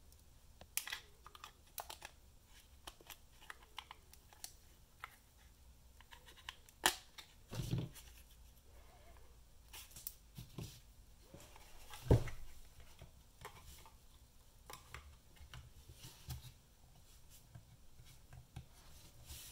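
Small hand-tool handling sounds: scattered clicks, taps and light scrapes of a small screwdriver and pick against the plastic housing and battery of a UE Roll speaker as the battery is pried into place, with a few louder knocks near the middle.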